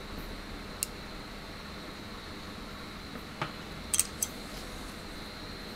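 A handful of sharp little metal clicks from a hex driver and the small metal parts of a model helicopter's tail pitch control arm as its bolt is tightened, three of them close together about four seconds in, over a steady background hum.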